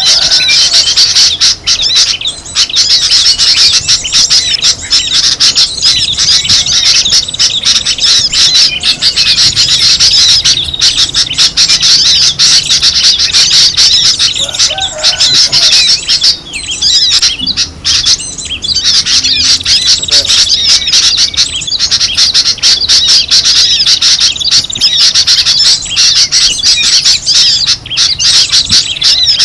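Many small songbirds chirping and twittering at once in a dense, unbroken chatter, thinning briefly about two-thirds of the way through: a noisy flock call of the kind played as a bird-lure recording to draw wild birds in.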